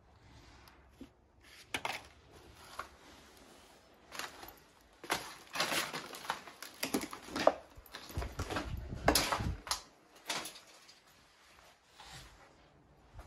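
Paper rustling and crinkling, with scattered clicks and knocks, as old papers and certificates are handled and put down. It is busiest in the middle seconds and dies down near the end.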